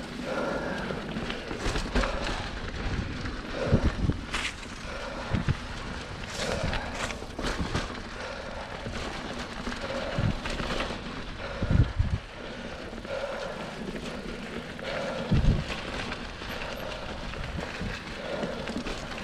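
Mountain bike rolling along a dirt cross-country trail, picked up by an action camera riding with it: continuous tyre and frame rattle with scattered sharp knocks as the bike hits bumps, the biggest a few seconds in, just past the middle and about three-quarters through.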